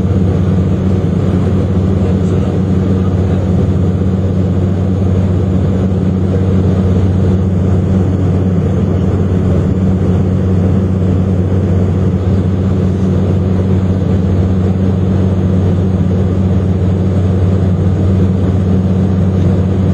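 Steady drone inside an airliner's cabin in flight: engine and airflow noise with a strong low hum.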